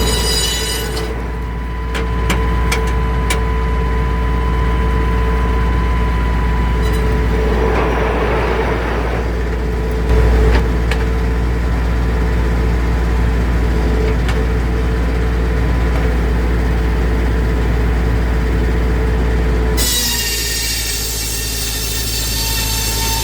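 Circular sawmill blade cutting spruce: a steady loud drone with a held whine. About twenty seconds in the sound changes abruptly to a brighter, higher ringing whine.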